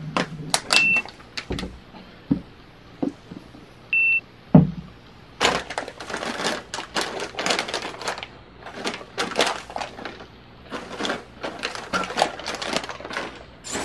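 Checkout barcode scanner beeping twice, about three seconds apart, as items are scanned, with knocks and a loud thud of items being put down. Then a long stretch of rustling and clicking as packaged goods are handled at the counter.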